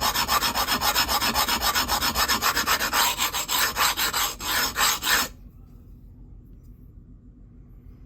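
Knife edge scraped edge-on across a DMT extra-coarse diamond plate in rapid repeated strokes, a harsh rasping that stops suddenly about five seconds in. This is bread knifing: grinding the edge straight down to remove chipped, damaged steel at the heel.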